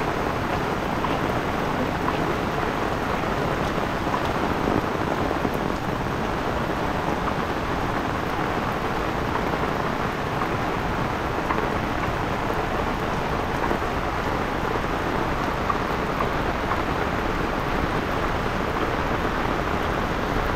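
Heavy rain falling steadily on a paved road and roadside plants, an even, unbroken hiss of drops.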